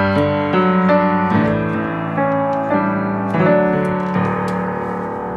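Background music: slow piano chords closing a song, getting gradually quieter.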